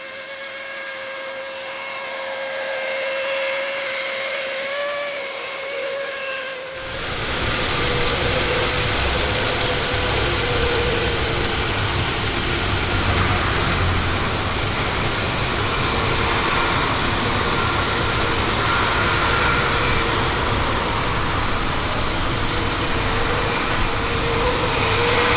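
TOMIX N-gauge power unit motor in a 115 series model train running with a steady, high whine. This is the abnormal mosquito-like, V12-like noise this unit makes. About seven seconds in, a louder rushing noise with a low rumble comes in under the whine.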